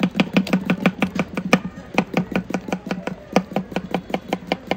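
Knife slicing a cucumber into rounds, each stroke knocking on a small wooden cutting board: a fast, even tapping of about six strokes a second, with a short pause about a second and a half in.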